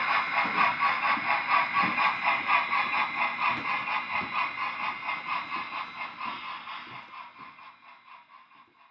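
O scale model train running, with a steady mechanical whine and a rhythmic clicking about three times a second. It fades out gradually to near silence near the end.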